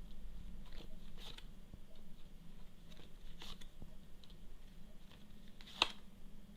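Faint scattered rustles and soft clicks of tarot cards being handled and turned over, with one sharper click near the end.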